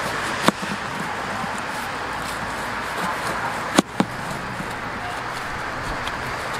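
A knife cutting through a pineapple on a wooden board, with three sharp knocks of the blade against the board: one about half a second in and two close together near the middle. Steady outdoor background noise runs underneath.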